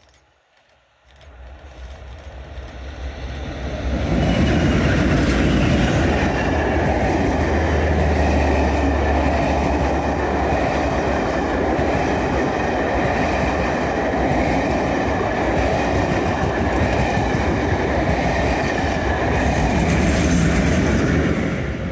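Diesel-hauled passenger train passing close by at speed. It grows louder over the first few seconds as it approaches, then comes a steady heavy rumble and clatter of coach wheels on the rails. Near the end a GBRf diesel locomotive on the rear passes.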